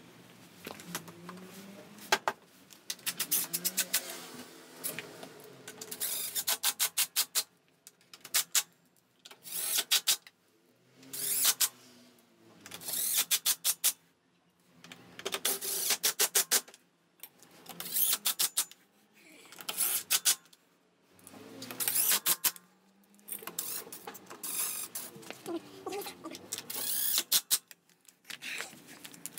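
Socket ratchet clicking in repeated short runs of rapid clicks, every second or two, as the bolts of a Yamaha Cygnus X scooter's CVT drive cover are turned.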